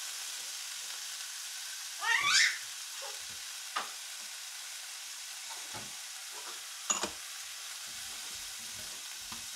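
Cranberries, shallots and butter sizzling steadily in a hot nonstick frying pan while sugar is stirred in with a wooden spatula, with a couple of light knocks of the spatula against the pan. A brief, loud, rising pitched sound cuts in about two seconds in.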